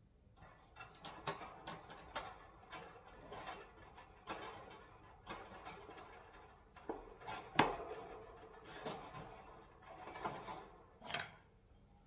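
Wire parrot cage clinking and rattling: a string of irregular metal knocks and clicks with rustling in between, the loudest knock a little past halfway and a last sharp one near the end.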